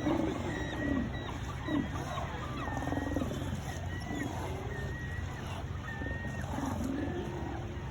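Sea lions roaring in repeated low, bending calls, with birds calling higher over a steady low rumble.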